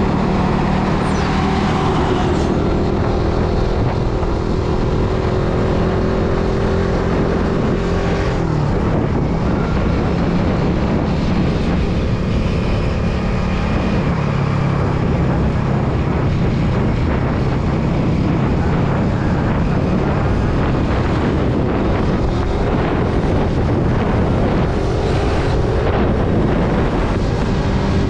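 Motorcycle engine running under way, with wind rushing over the microphone. The engine note steps down about eight seconds in and changes again near the end.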